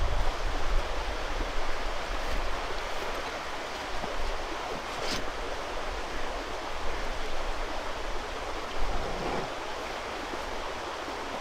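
Steady rushing outdoor noise with wind buffeting the microphone, and a single sharp click about five seconds in.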